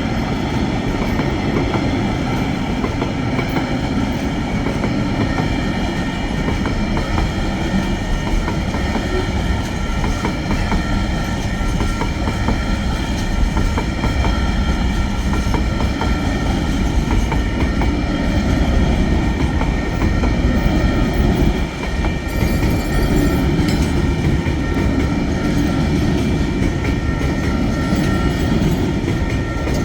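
Freight train rolling past a level crossing with a steady rumble and wheels clacking over the rail joints. A steady high-pitched ringing sits over the top, and the noise dips briefly about two-thirds of the way through.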